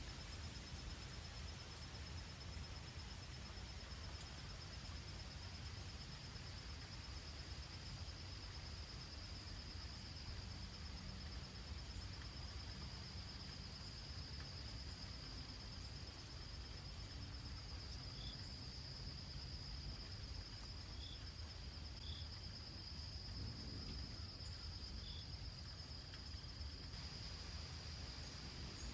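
Steady high-pitched insect trill, cricket-like, over a soft, even hiss of summer rain. A few brief high chirps come in the second half.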